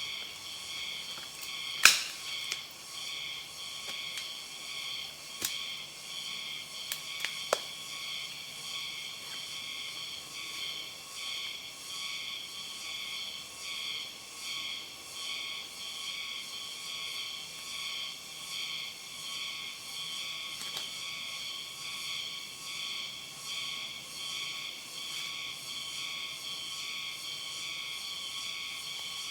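Steady, high-pitched chorus of insects swelling and fading about once a second. A sharp click about two seconds in, and a few fainter clicks around seven seconds.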